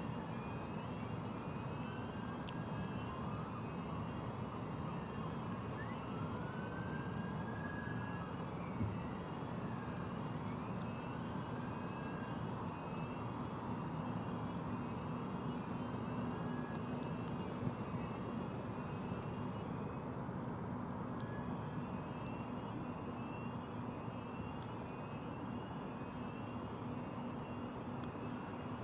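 Low, steady hum of a small general cargo ship's diesel engine as she manoeuvres slowly through the dock. Faint rising-and-falling wails come every few seconds over it.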